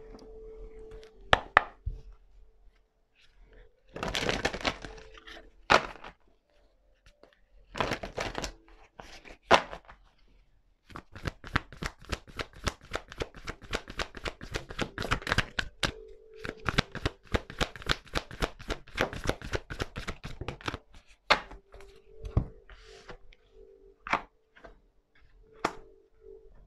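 Oracle cards being handled and shuffled by hand. It starts with a few scattered bursts of handling, then a long run of rapid riffling clicks lasting about ten seconds, and ends with a few separate knocks as cards are set down.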